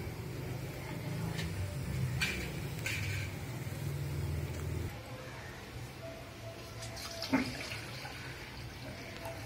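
Water pouring from a vessel into a stainless steel pot, in a steady stream that stops about five seconds in.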